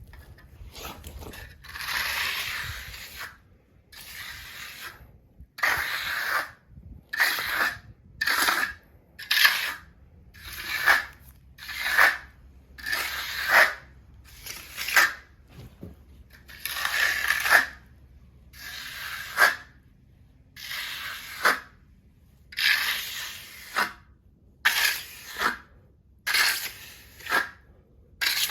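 Repeated scraping strokes, about one a second, each a short rough rasp that stops cleanly between strokes.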